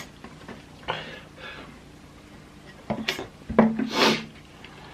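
A few short rubbing and handling noises with light knocks, loudest between about three and four seconds in.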